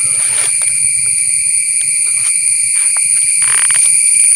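Steady, high-pitched chorus of insects such as crickets or cicadas, with scattered soft footfalls and a brief rustle about three and a half seconds in.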